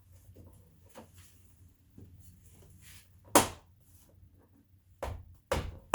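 Car door trim piece being pressed and knocked into place by hand: faint clicks, then one sharp knock a little over three seconds in and two more near the end.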